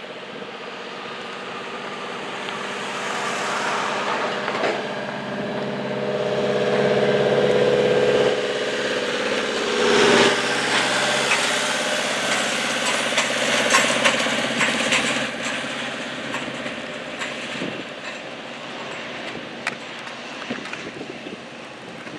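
An aircraft passing by: its engine sound swells over several seconds, is loudest about eight to ten seconds in, then fades away.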